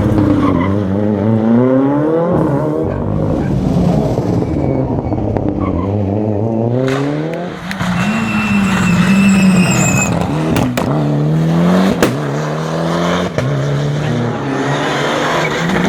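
Rally car engine revving hard, its pitch climbing and then dropping again and again as it accelerates and changes gear. A few sharp cracks come about two-thirds of the way in.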